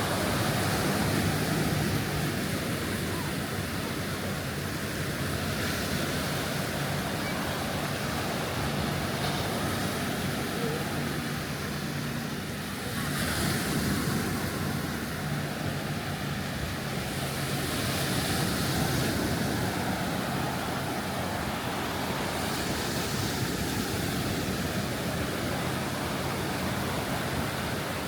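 Gulf of Mexico surf washing onto the beach: a steady hiss of breaking waves that swells louder about halfway through and again a few seconds later.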